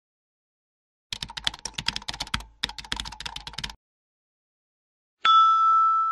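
Computer keyboard typing sound effect: a quick run of key clicks lasting about two and a half seconds, with a brief break in the middle. Near the end a bright ringing tone sounds suddenly and holds.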